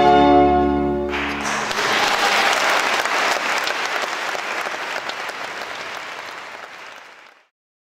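The final held chord of the music dies away about a second in as audience applause breaks out; the applause then fades out near the end.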